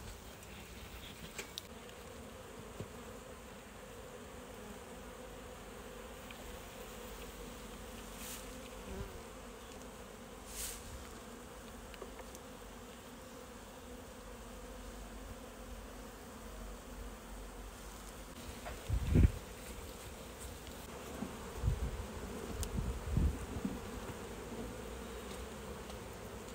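Honeybees humming steadily over the open frames of a hive. A loud thump about two-thirds of the way through and a few more knocks near the end.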